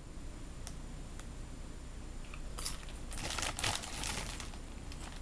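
Dry, crackly crunching of a Doritos tortilla chip being chewed: a cluster of crunches from about halfway through, with a few single crackles before and after.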